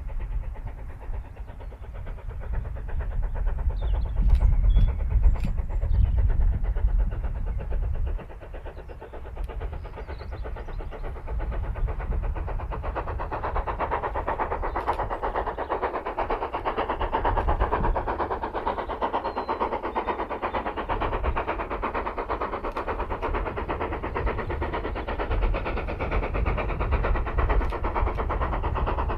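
Heritage railway train running past, its noise building from about ten seconds in and then holding steady, with a low rumble in the first few seconds.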